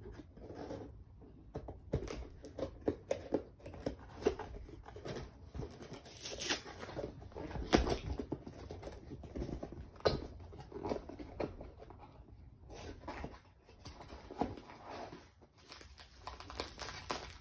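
A small cardboard blind box and its packaging being torn open and handled by hand: irregular rustling and tearing with scattered sharp taps and clicks.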